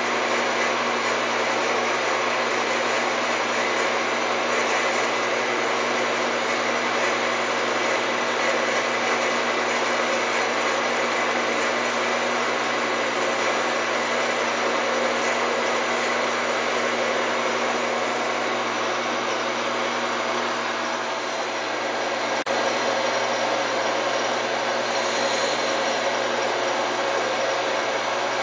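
Emco Super 11 CD metal lathe running steadily, its motor and spindle giving a constant mechanical whine while the cutting tool turns the part. There is a single sharp click late on.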